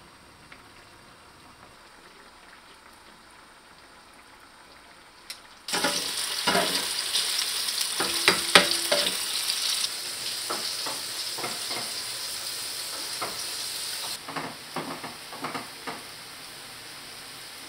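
Faint quiet at first. About six seconds in, tofu slices start sizzling in oil in a frying pan, with clicks and scrapes of a metal spatula. Near the end the sizzle is quieter while a pan is stirred with a wooden spatula, with scattered knocks and scrapes.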